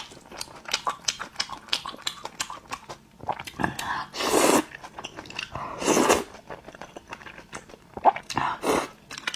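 Close-miked chewing and biting of thick noodles and meat in sauce: many short wet mouth clicks, with a few louder noisy bursts in the middle and near the end.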